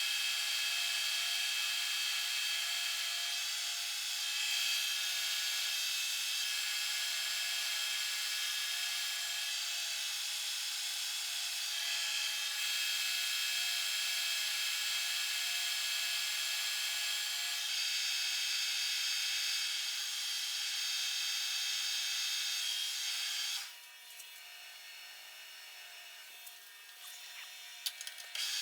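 Monarch Series 60 metal lathe running as a tool cuts a cold-rolled steel disc, a steady whine with several high pitches. It drops sharply about 24 seconds in, and a few light clicks follow near the end.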